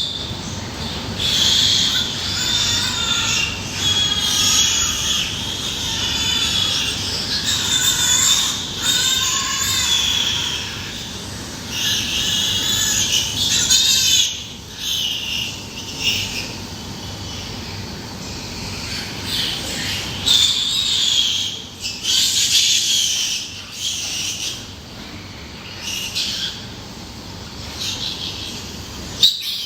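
Pigs squealing in repeated high-pitched cries, each lasting a second or two, in bouts with short gaps between them.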